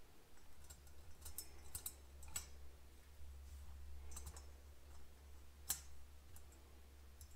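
Faint, irregular clicks of small steel parts: valve spring retainer keepers and the spring cap on a 1973 Honda CL125 cylinder head being handled and pressed onto a valve spring to seat the keepers.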